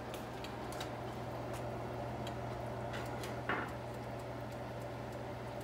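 Pot of chicken broth at a rolling boil: steady bubbling with scattered small ticking pops over a low steady hum, and one brief squeak about three and a half seconds in.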